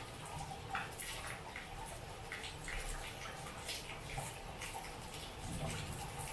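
Steady rain falling, with a dense patter of separate drips and splashes close by.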